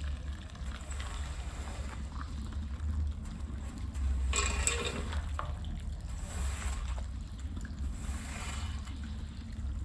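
Water running and splashing during a rug wash, over a steady low hum, with a louder rush of spray about four and a half seconds in.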